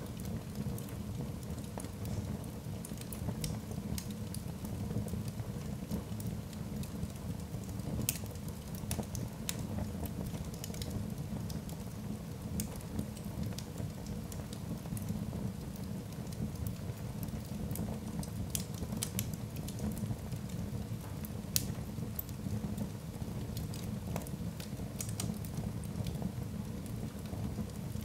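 Log fire burning in a hearth: a steady low rush of flames with irregular sharp crackles and pops from the logs.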